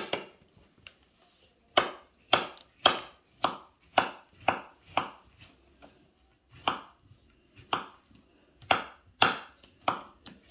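Kitchen knife dicing peeled yellow melon on a wooden cutting board: sharp knocks as the blade cuts through the soft flesh into the board. The strokes come about two a second in short runs with brief pauses, starting after a short silent pause.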